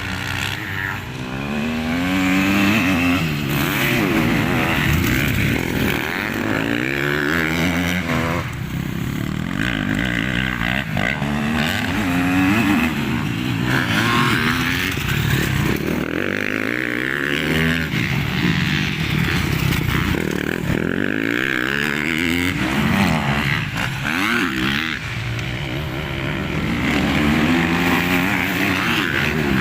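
Several motocross bikes running on a dirt track, their engines revving up and dropping back again and again.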